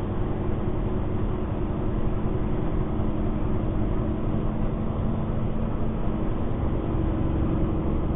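Peterbilt 389 semi truck's diesel engine running steadily at highway cruise, a constant low drone with a few held tones, mixed with tyre and road noise.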